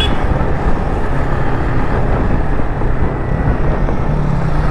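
Wind rushing over the microphone and road noise from a moving motorcycle, with its engine running steadily underneath.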